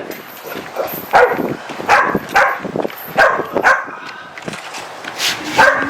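Puppies barking and yipping in short, repeated calls, with a few sharp clicks between them.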